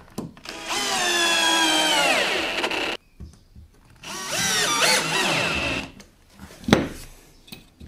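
Cordless drill-driver driving two screws into plywood, each run lasting about two seconds, the motor pitch falling as each screw pulls in and then stopping abruptly. A single sharp knock follows near the end.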